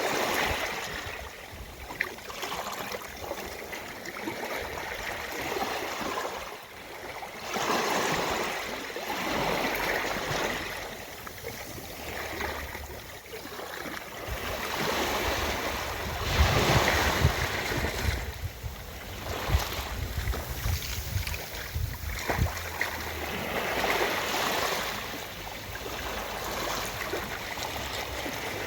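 Ocean waves washing onto a beach, each swelling and falling away every few seconds, with a louder, rumbling stretch about halfway through.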